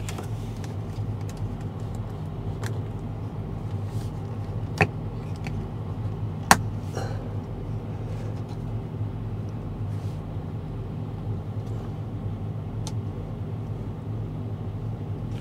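Semi truck's diesel engine idling, a steady low hum, with two sharp clicks about five seconds in and again a second and a half later.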